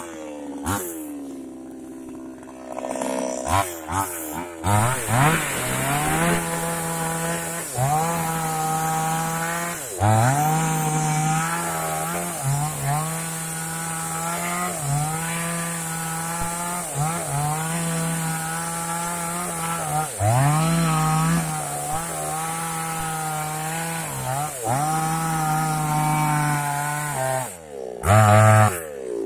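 New West chainsaw's two-stroke engine idling for the first few seconds, then run at high revs cutting rubber wood, its pitch dipping and climbing back every two to three seconds as it works through the cut. A brief louder burst comes near the end.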